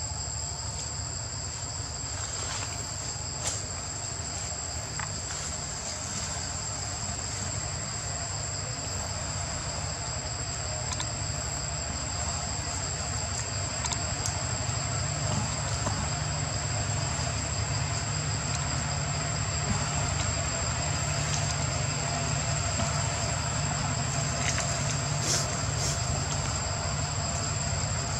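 Steady drone of forest insects, with two constant high-pitched tones over a haze of hiss. A steady low rumble runs beneath it, and a few faint clicks stand out.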